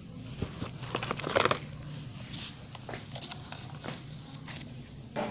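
Rustling and crinkling of plastic and paper with light clicks and knocks as toys are handled in a cardboard box, the rustle heaviest about a second in, with a sharper knock near the end. A steady low hum runs underneath.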